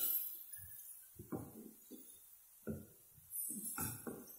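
Wooden spatula stirring chopped onion and tomato in a metal kadai, a few short scraping strokes against the pan about a second apart.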